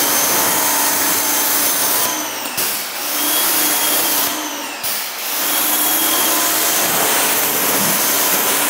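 Active 2.0 electric pressure washer running, its water jet hissing against a car's paintwork over the motor's steady whine. The whine falls away briefly twice before picking up again.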